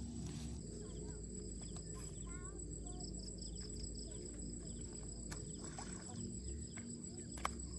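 Insects trilling steadily in two high continuous tones, one of them pulsing in the second half, over a steady low outdoor background noise, with a few short chirps and a sharp click near the end.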